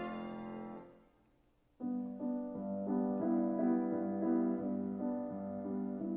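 The last held note of the song's accompaniment fades away, a second of silence follows, then a piano starts playing a slow, gentle melody, one note after another.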